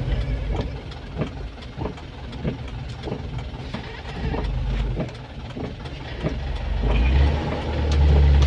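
Elf minibus heard from inside the cabin: a low engine rumble with a regular tick about every 0.6 s, then the engine note swells into a loud low drone about seven seconds in as the bus pulls harder.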